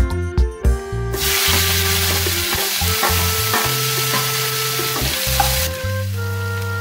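Sliced onions dropped into hot oil in a kadai start to sizzle about a second in, and the frying hiss eases near the end as they are stirred with a wooden spatula. Background music plays throughout.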